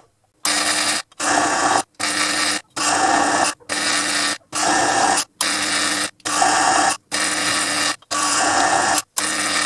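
Proxxon PD 250/e mini lathe cutting a thread with a carbide threading insert, sped up fivefold. It comes as about a dozen even, short runs of cutting noise, each under a second, with brief silences between them.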